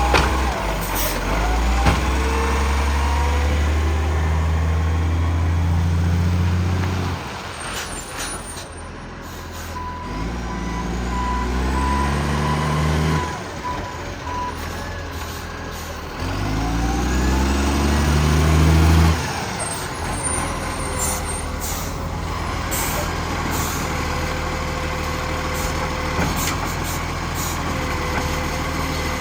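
Diesel engine of a 2010 garbage truck with an exhaust leak, revving up three times for a few seconds each and dropping back to a lower run between.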